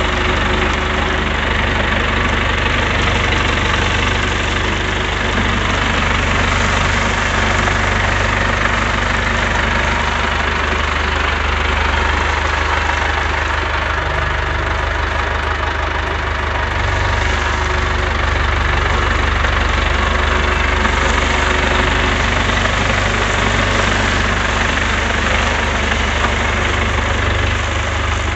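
Ford 5030 tractor's diesel engine running steadily as the tractor rolls over dried bean plants, threshing the beans out of the pods under its tyres.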